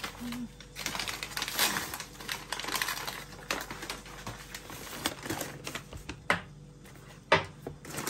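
Brown paper bags rustling and crinkling as bread rolls are pulled out and set into woven wicker baskets, with irregular light clicks and taps. A sharp tap about 7 seconds in.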